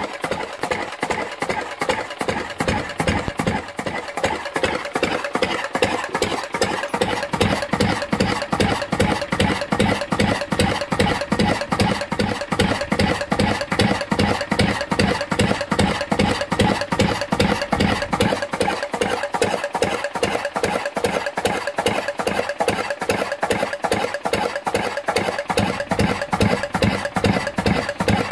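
Lister CS single-cylinder slow-speed diesel stationary engine running, its firing strokes coming as a fast, even beat of knocks.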